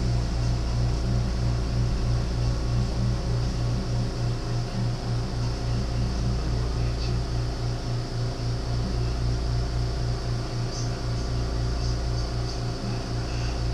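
Steady low machine hum with an even, fast throb, about three to four pulses a second, and a few faint ticks.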